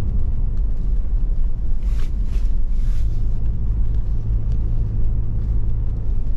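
Off-road vehicle on the move: a steady low engine and road rumble, with a few short hisses about two to three seconds in.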